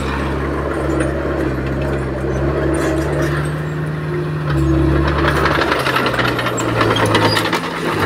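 Heavy diesel engine running steadily, its note dropping about six seconds in, with a rattle of clanking and clicks in the second half.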